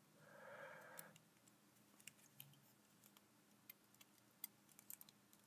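Near silence, broken by faint, scattered small clicks and ticks of fingers handling and pressing the small parts of an action figure. A faint murmur of a voice sits in the first second.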